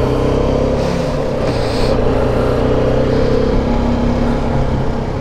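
Motorcycle engine running steadily while the bike rides along a city street at an even pace, with wind and road noise heard at the bike-mounted camera.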